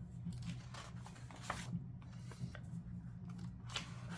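Paper rustling and small clicks as the pages of a book are handled and turned, over a steady low hum.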